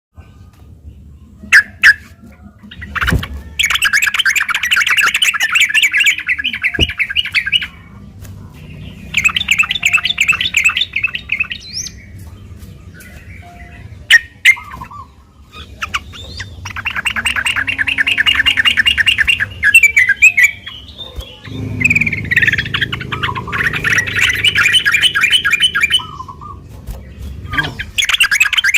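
Yellow-vented bulbul (trucuk) song: bursts of rapid, bubbly chattering, each lasting two to four seconds, repeated five times with short pauses. A few sharp, loud clicks fall in the gaps, the first at about two seconds in and another at about fourteen seconds.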